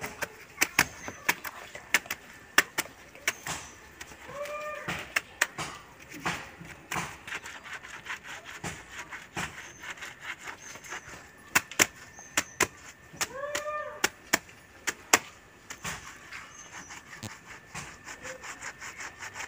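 A soaped cloth hand-scrubbed against a stone washing slab: rubbing and scraping with many irregular sharp knocks. Twice, about 4 s and 13 s in, a short rising-then-falling animal call.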